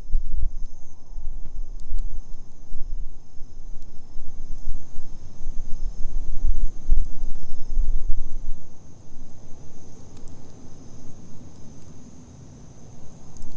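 Wood campfire burning, with a few faint sharp crackles over a low, gusty rumble that dies down near the end. Insects chirp steadily in a high, continuous trill behind it.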